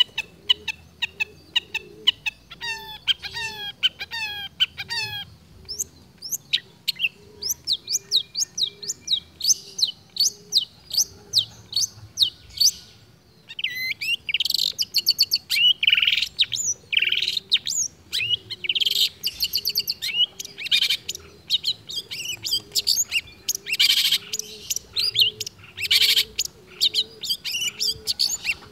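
Long-tailed shrike singing a rapid, unbroken stream of varied chirps, sweeping whistles and trills, mimicking the songs of other birds. The song grows louder and denser about halfway through, over a faint low note repeating steadily underneath.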